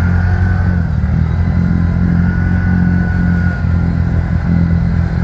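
ATV engine running at a steady speed, with a thin steady whine above the low engine note.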